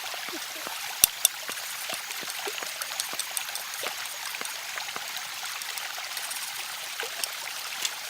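A forest stream running with a steady babble of water, with small ticks throughout and one sharp knock about a second in.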